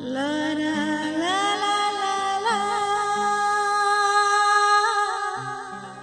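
Song intro: a wordless sung note slides up and steps higher, then is held long with vibrato over a soft bass line. It fades away near the end.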